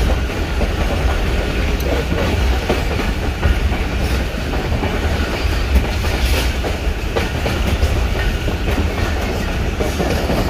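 Pakistan Railways passenger train (the Pak Business Express) running on the line: the steady heavy rumble of the coach, with the clatter of its wheels over the rails, heard from inside the carriage.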